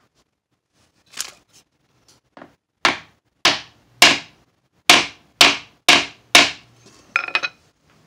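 Hammer tapping a grooved metal radius block to seat a fret wire into its slot in a guitar fretboard: a few light taps, then seven hard blows about half a second apart, and a short clattering knock near the end.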